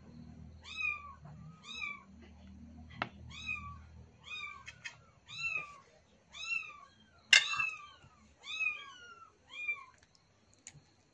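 A cat meowing over and over, about a dozen short meows that each rise and fall in pitch, coming every half second to a second. A sharp click sounds a few seconds in, and a louder one a little past halfway.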